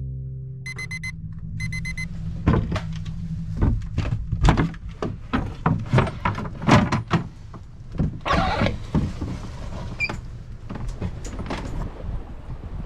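Aboard a sailing yacht at night: two short runs of rapid electronic beeping, then a string of irregular knocks and clunks over a low steady rumble.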